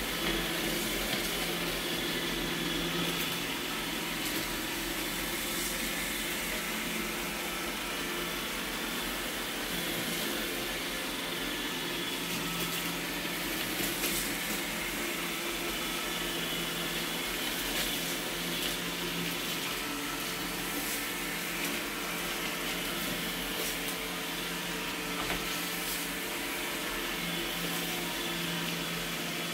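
iRobot Roomba robot vacuums (i7 and 805) running in spot mode: a steady motor and brush whir with a low hum that comes and goes, and scattered faint clicks.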